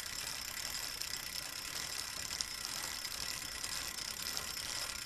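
Steady night ambience of chirping crickets, with faint irregular mechanical ticking over it.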